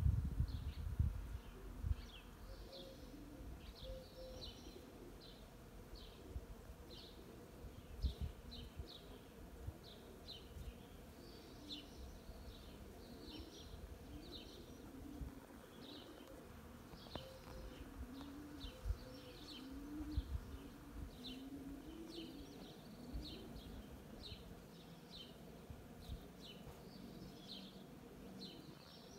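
Bees buzzing among pear blossom, with a songbird's short high chirps repeating throughout and a dove's low cooing calls repeating in the second half. A few low thumps near the start.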